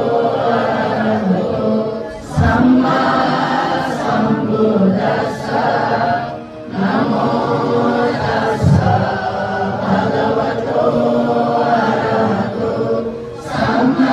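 Buddhist monks and nuns chanting Pali verses together in unison, in long held phrases with a few short breath pauses.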